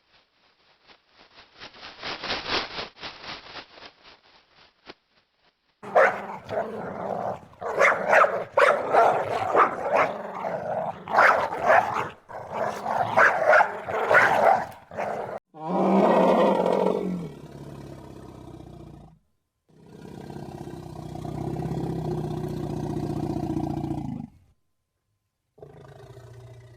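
A string of different animal calls: a rattling sound, then several seconds of loud, rough growls and roars, then shorter calls with a clearer pitch.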